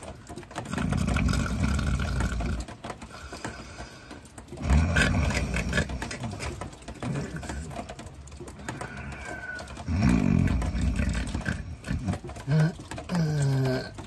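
A man snoring in long, rasping breaths a few seconds apart, with falling, pitched snorts near the end.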